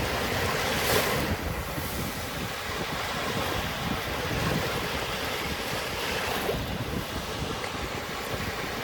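Sea waves washing onto a shore, with wind on the microphone; a wave surges about a second in.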